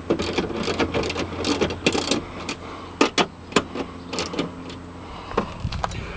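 Rapid clicks, knocks and rattles of hand work on metal parts, over a steady low hum that fades about two seconds in.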